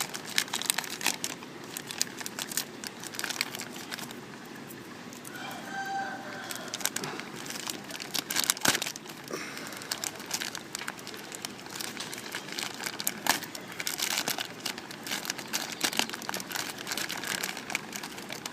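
Plastic parcel packaging being torn open and crinkled by hand, a dense irregular crackling and rustling.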